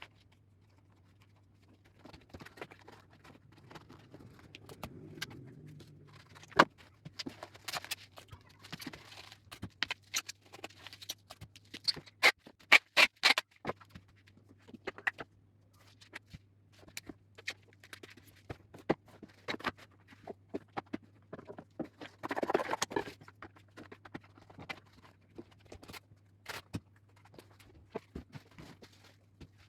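Parcels being packed by hand: scattered taps, knocks and rustles of handling the packages, with a longer rasp of packing tape pulled off the roll about three-quarters of the way through. A low steady hum runs underneath.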